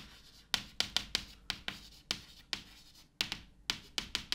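Chalk writing capital letters on a blackboard: a quick series of short taps and scrapes, one per stroke, with a brief pause a little before three seconds in.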